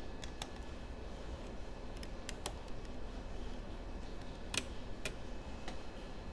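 Scattered light clicks and taps, about eight in all, the sharpest one just past the middle, from small tools and parts handled during bench repair work, over a steady low hum.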